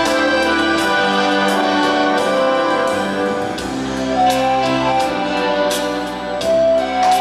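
Instrumental music with sustained chords and light percussive strikes at a steady beat.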